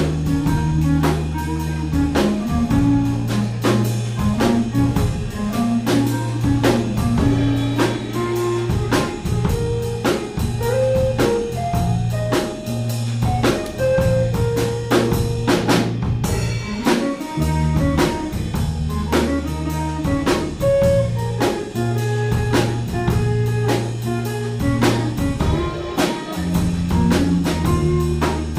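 Live band playing an instrumental passage of a blues song: a drum kit keeping a steady beat, an electric bass holding long low notes, and an electric guitar playing melodic lines.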